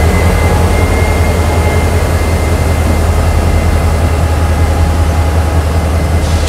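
Norfolk Southern diesel locomotives rolling slowly past, their engines running with a loud, steady low rumble. A short hiss comes in near the end.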